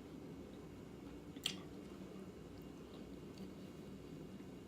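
Faint chewing of food, with one sharp click about a second and a half in, over a steady low room hum.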